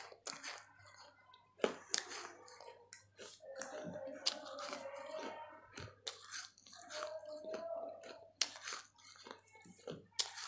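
A person biting and chewing pieces of a baked clay pot (matki): crisp crunching and grinding in the mouth, with several sharp cracks as pieces break.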